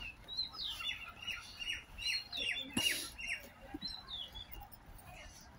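A small bird chirping: a quick series of short, high, downward-sliding notes, about three a second, starting under a second in and stopping by about three and a half seconds. A single sharp click sounds about three seconds in.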